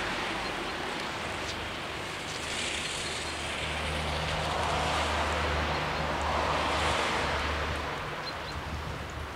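Wind blowing over the microphone in the rain, a steady hiss that swells and eases several times, with a low steady hum through the middle.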